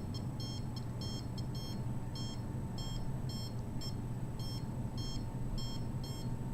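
Handheld RF (microwave) meter beeping in short, high chirps, about three to four a second in an uneven rhythm, over a steady low hum.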